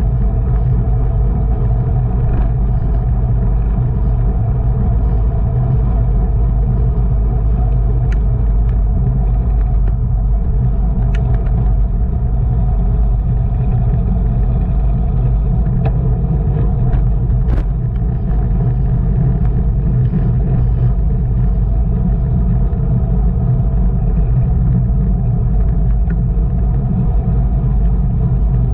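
Wind rushing over the microphone of a camera on a racing bicycle at speed, a loud, steady low rumble with road and tyre noise. A few sharp clicks come through, around a third and then halfway in.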